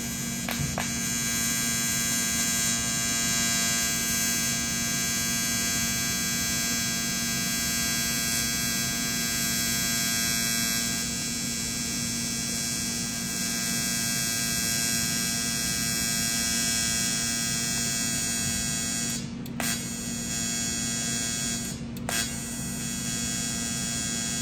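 AC TIG welding arc on aluminum from a Titanium TIG 200 welder, buzzing steadily while filler is dabbed in. The buzz cuts out briefly twice near the end, where the arc is lost under very light foot-pedal control.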